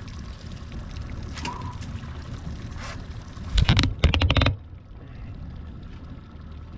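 Trolling fishing boat running with a steady low rumble. About three and a half seconds in, a loud burst of rapid clicking and knocking lasts about a second.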